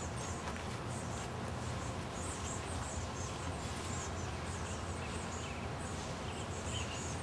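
Outdoor ambience: a steady background hiss and low hum, with small birds chirping faintly in many short, high calls.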